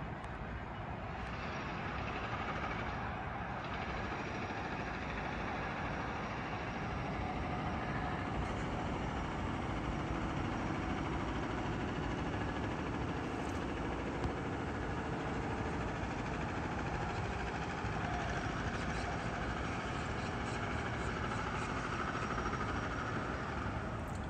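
Steady wash of road traffic noise from busy roads and expressways, with no single vehicle standing out.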